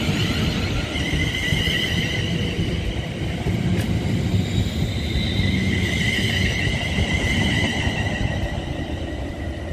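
Train running through the station: a continuous low rumble with a high, wavering whine on top.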